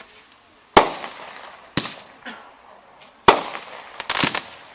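Winda 'All In' 51-shot consumer firework cake firing: sharp shot reports roughly a second apart, each trailing off briefly, then a quick run of several bangs near the end.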